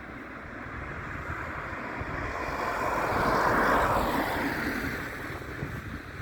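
Jet airliner passing by. Its engine noise swells to a peak about three to four seconds in, then falls in pitch and fades, with wind buffeting the microphone throughout.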